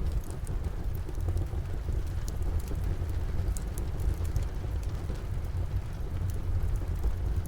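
Steady rain with a deep low rumble under it, and scattered sharp crackles and pops from a fireplace fire.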